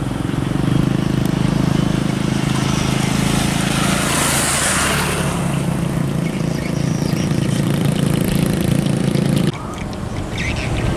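A small motorbike engine running steadily close by, with a brief rising-and-falling hiss about four seconds in. The engine sound cuts off abruptly shortly before the end.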